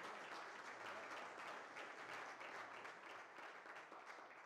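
Faint audience applause from a room of people clapping, dying away near the end.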